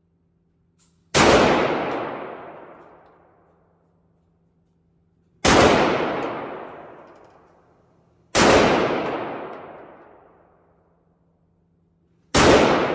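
Four single gunshots, spaced about three to four seconds apart, each followed by a long echoing decay.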